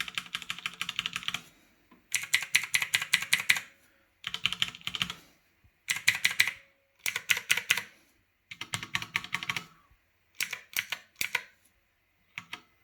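Typing on a Redragon K583 mechanical keypad with clicky Otemu Blue switches: fast runs of keystrokes about a second long, separated by short pauses, then a few single clicks near the end.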